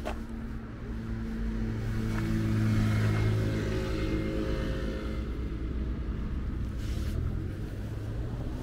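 A motor vehicle's engine running close by: a low, steady hum that swells to its loudest about three seconds in and then eases off.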